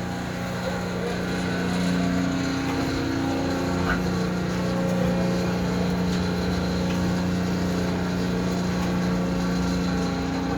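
Concrete mixer truck running, its engine and hydraulic drum drive making a steady, even hum, with a slight shift in pitch about three seconds in and a faint click near four seconds.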